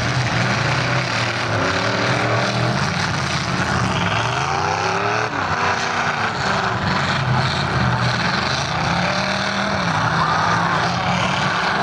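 Demolition derby cars' engines running hard and revving, their pitch rising and falling over a steady drone.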